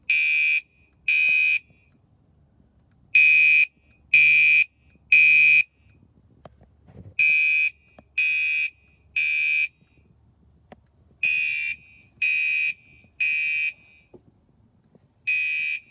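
Fire alarm horn sounding the temporal-3 evacuation signal. It gives loud, high-pitched beeps in groups of three, each about half a second long and a second apart, with a pause of about two seconds before the next group.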